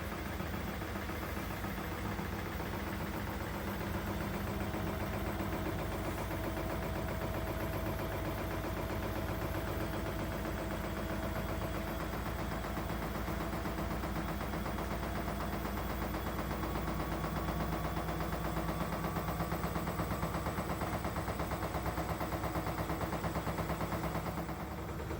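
Elin front-loading washing machine running in its rinse programme: a steady motor hum with a faint whine. It gets a little louder about two-thirds of the way through, with a fast even pulsing.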